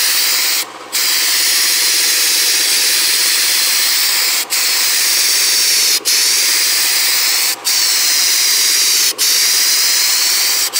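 Snap-on gravity-feed spray gun hissing as compressed air atomises thinned paint onto a door, in passes that cut out briefly about a second in and then every second and a half or so.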